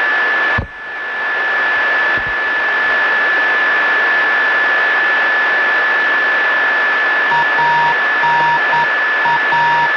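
Open air-to-ground radio channel: steady static hiss with a constant high-pitched whistle, broken by a short click about half a second in. From about seven seconds in, a run of short and long beeps of uneven length comes through the static.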